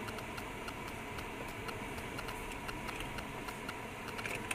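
A car's turn-signal indicator ticking steadily, several clicks a second, over the low engine and road noise inside the car's cabin as it turns.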